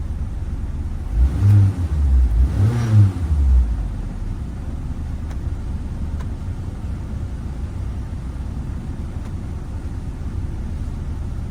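Car engine running with a steady low rumble, revved briefly twice between about one and four seconds in, then settling back to its steady note.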